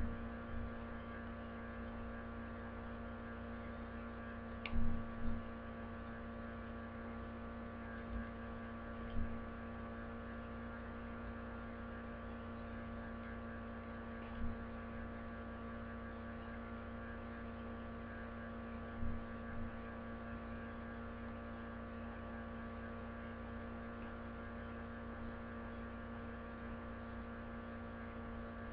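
Steady electrical mains hum with many overtones, picked up in the recording, with a few soft low thumps from hands handling cards near the microphone, the loudest about five seconds in.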